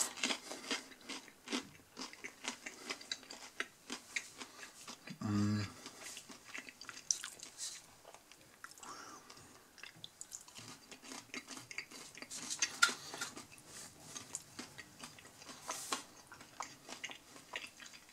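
Close-up chewing of a breaded, deep-fried chicken strip: many small crunches and chewing noises throughout. A short closed-mouth hum comes about five seconds in.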